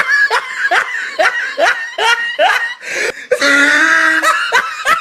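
Laughing in a run of short rising 'ha' sounds, about two or three a second, broken about three and a half seconds in by a drawn-out held vocal note.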